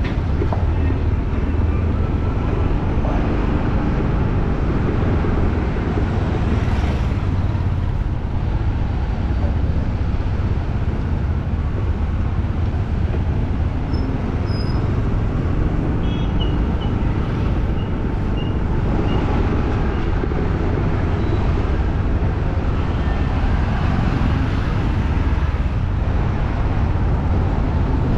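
City street ambience: steady traffic noise from passing vehicles, with a few faint high chirps about halfway through.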